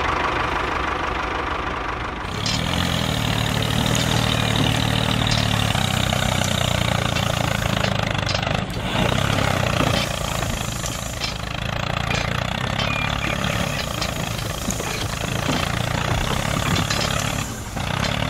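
Tractor engine running steadily with a low, even chug, growing louder about two seconds in, with a few scattered clicks over it.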